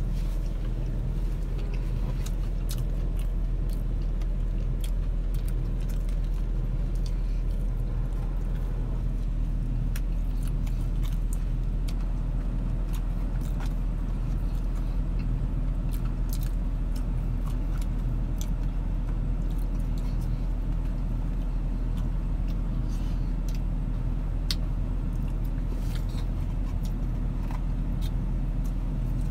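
Steady low hum of a car idling, heard inside the cabin, with faint scattered clicks and rustles of fries being eaten from a paper carton.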